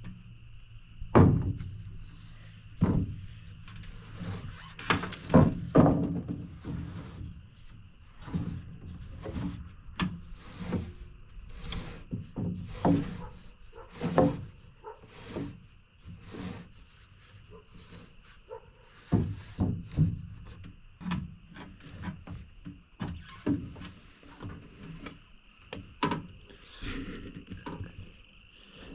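Irregular knocks and thuds of wood as purlin boards are handled and fastened onto timber garage trusses.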